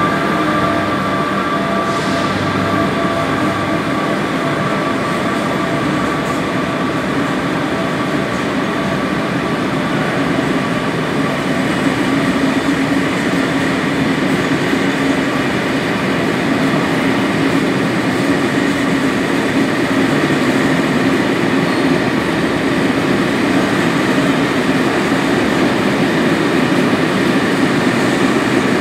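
Corail passenger coaches rolling past as the train pulls out, a steady rumble of wheels on the rails that grows a little louder from about twelve seconds in, echoing under the station roof. A thin high whine fades out within the first few seconds.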